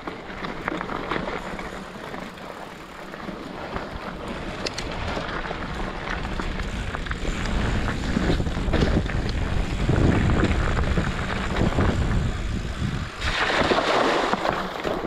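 Wind buffeting the microphone, with a rough low rumble that grows louder after the middle and a burst of hiss near the end.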